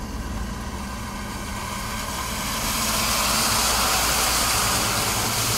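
A motor vehicle's engine idling steadily. About halfway through, a broad rushing noise builds up and then stays loud.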